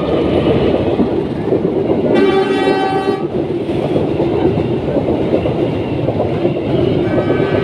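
Passing train rumbling and clattering on the rails. About two seconds in it sounds a horn for about a second, and a second horn note starts near the end.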